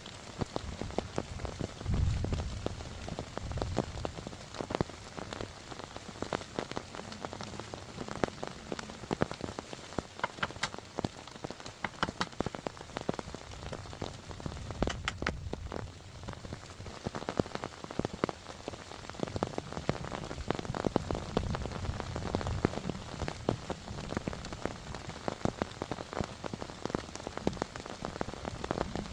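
Heavy rain falling, with many sharp close drop impacts ticking over the steady hiss, and a few low rumbles now and then.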